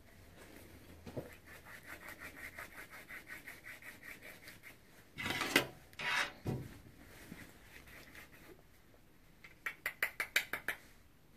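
Small acrylic herb grinder being twisted back and forth, its teeth rasping through dry cannabis in quick ticking strokes, about five a second. Two louder scrapes come about five and six seconds in, and a faster, louder run of clicks near the end.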